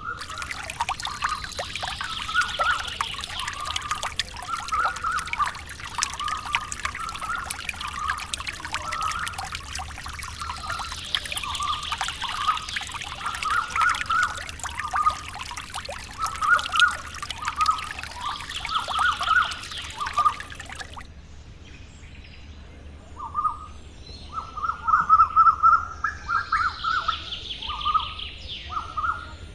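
Birds chirping in quick repeated phrases, with higher falling calls now and then, over a steady hiss. The hiss stops abruptly about two-thirds of the way through while the chirping continues.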